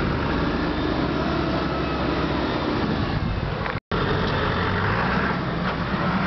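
Land Rover Discovery engines running off-road: one crawling through a water-filled rut, then, after a brief dropout just under four seconds in, another running close by with a steady low note.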